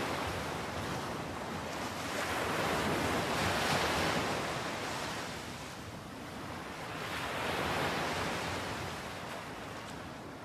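Ocean waves washing in, each surge swelling and ebbing over about four seconds.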